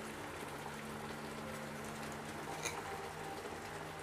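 Spiced egg curry gravy simmering in a kadai over a gas flame, a soft steady bubbling with a faint tick or two, over a low steady hum.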